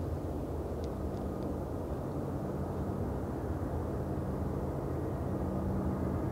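Distant BNSF diesel-electric locomotives hauling a long freight train, heard as a steady low engine drone.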